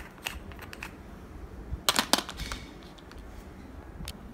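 Small plastic travel jars and their screw-on lids clicking and tapping against each other and the clear plastic box as they are handled and set in. About half a dozen sharp clicks, the loudest pair about two seconds in.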